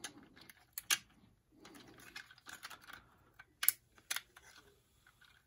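Hard plastic toy parts clicking and rattling in the hands as small green pieces are worked into holes on the toy vehicle's body. There are a few sharper clicks about a second in and around four seconds in.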